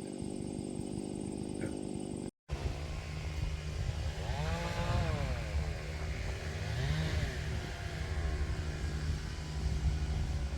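An engine running steadily, heard in two separate stretches split by a brief cut. A higher tone rises and falls twice in the second stretch.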